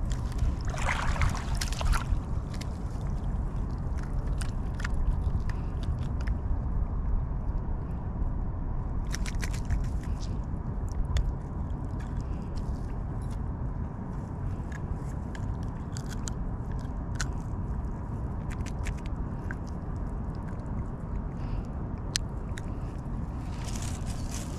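Steady wind rumble on the microphone with irregular small clicks and scrapes from handling a just-landed fish and fishing tackle.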